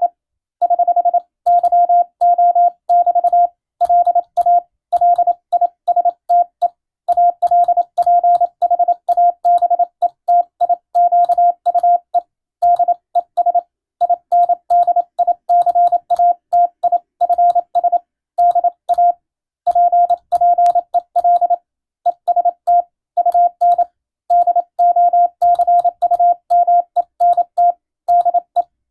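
Morse code (CW) tone sending a Latin-alphabet radiotelegram for receiving practice: a single steady beep switched on and off in quick dots and dashes, with brief pauses between words.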